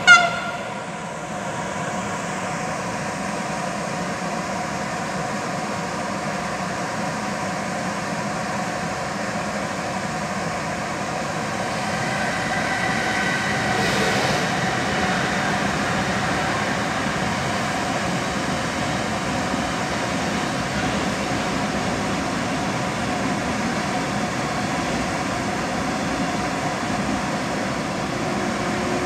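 Intermodal freight train of container wagons rolling steadily past, a continuous rumble of wheels on rail. A short loud tone sounds right at the start, and a faint higher squeal comes in about twelve to fifteen seconds in.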